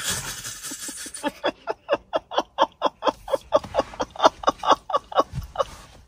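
A woman shrieks, then laughs in a long run of quick, evenly repeated bursts, startled by an air horn blast.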